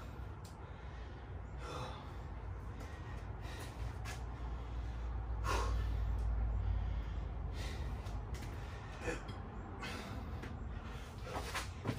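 A man breathing hard, deep gasping breaths about every two seconds, winded from a round of burpees with push-ups. A low rumble swells in the middle.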